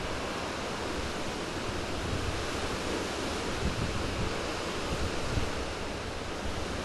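Steady outdoor wind noise, with irregular low rumbles from wind buffeting the microphone.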